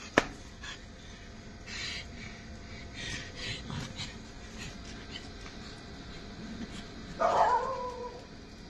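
A dog gives one drawn-out bark near the end, after a sharp click just after the start and some faint scuffing.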